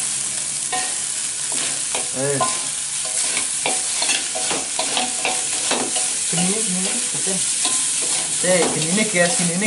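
Fried rice sizzling in a steel wok on a gas burner while a metal spatula and spoon stir and scrape it, with frequent clinks of metal on the wok.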